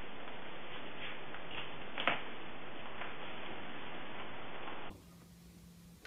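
A joint cracks once under a chiropractic adjustment: one sharp click about two seconds in, with a few fainter clicks, over steady hiss. Near the end the hiss drops away to a quieter low hum.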